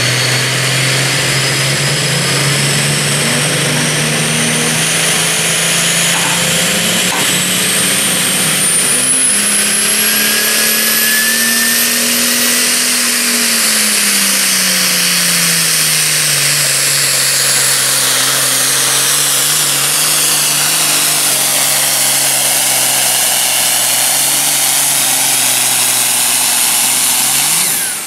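Super Farm class pulling tractor's diesel engine running flat out as it drags the weight-transfer sled, loud and continuous, with a high whine that rises in pitch early on. The engine note climbs and then sags about halfway through the pull.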